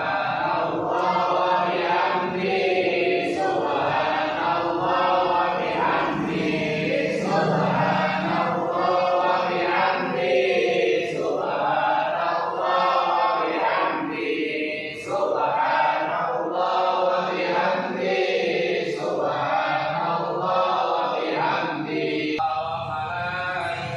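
A group of men chanting an Islamic devotional recitation (dhikr) in unison, in phrases with short breaks every few seconds.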